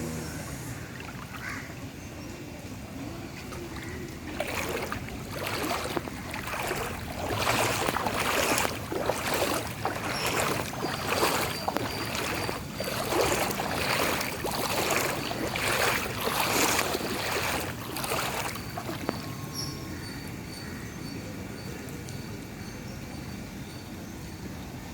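Floodwater in a street splashing and sloshing in a run of repeated surges, about one or two a second, for some fifteen seconds starting about four seconds in, over a steady background hum.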